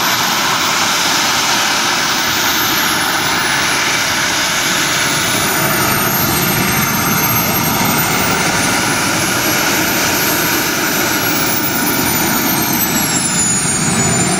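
Giant-scale RC model Avro Vulcan's jet turbines running on the ground: a loud, steady rushing hiss with several high whines that waver up and down in pitch.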